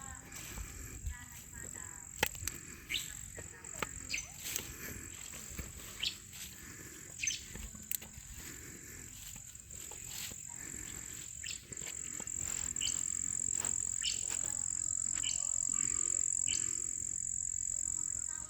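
Outdoor field ambience: birds give short, repeated chirps over a steady high-pitched insect drone, and the drone grows louder in the second half.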